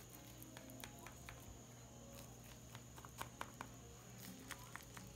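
Faint scattered clicks and light scrapes of a knife cutting through a baked pie and touching its disposable aluminium foil tray, over a faint steady high-pitched tone.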